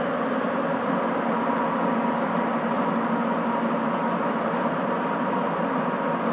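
Interior running sound of a Sapporo Municipal Subway Tozai Line 8000 series rubber-tyred train cruising between stations in the tunnel: an even rushing noise with a steady low hum and a steady higher whine.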